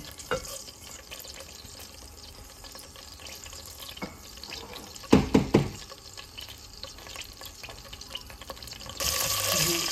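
Fennel seeds and green cardamom in heating oil in a pot give a faint steady hiss, with a few sharp clinks about five seconds in. Near the end a louder sizzling hiss starts suddenly.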